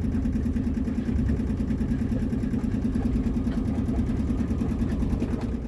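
Boat engine idling steadily with an even, rapid low pulse.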